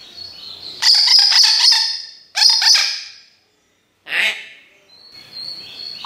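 African grey parrot whistling and chirping. A high steady whistle comes first, then a quick run of clicks and chirps, a second short burst, a brief call after a pause, and another high whistle near the end.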